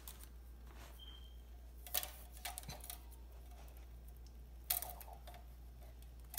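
Small scissors snipping the edge of vinyl contact paper: a few faint, short snips, about two seconds in and again near five seconds, over a low steady room hum.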